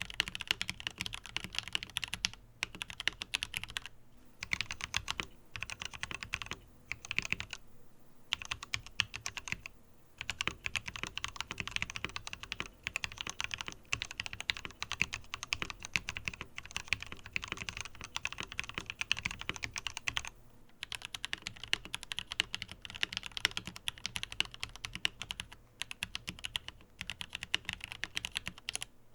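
Continuous typing on a Tom680 mechanical keyboard: rapid keystroke clicks in quick runs, with brief pauses between bursts.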